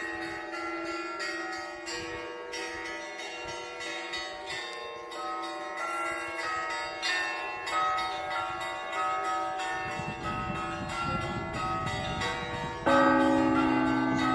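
Russian Orthodox church bell ringing (zvon): smaller bells struck in quick, repeated patterns over the sustained hum of larger bells. Near the end a deep bell is struck, the loudest stroke.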